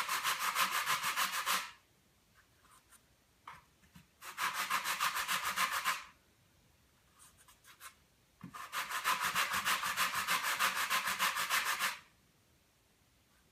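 Sandpaper on a flat sanding block rubbing over a model glider wing in three spells of quick back-and-forth strokes, the last one the longest. The wing is being sanded down until the black guide lines disappear.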